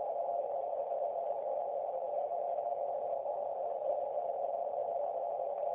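Icom IC-706 shortwave receiver giving a steady rushing hiss through its narrow CW filter, the noise squeezed into a mid-pitched band. The noise is interference that the WinkeyUSB morse keyer puts into the receiver over its USB connection.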